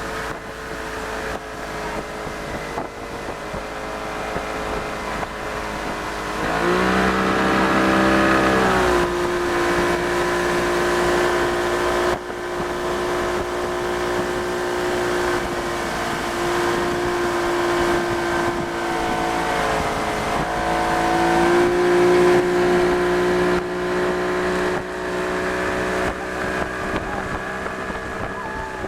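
Yamaha 90 hp two-stroke outboard motor running under way with a steady drone. It revs up sharply about six seconds in, then holds a steady pitch, and revs up again a little past twenty seconds.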